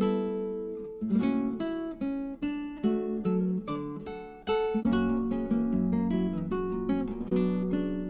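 Background music: acoustic guitar, plucked and strummed chords at a steady pace.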